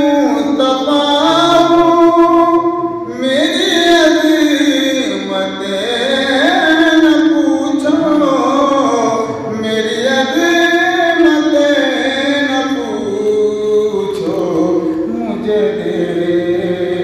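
A man singing a naat, an Urdu devotional poem in praise of the Prophet, solo into a microphone. He sings in long, drawn-out melodic phrases whose held notes slide up and down in pitch.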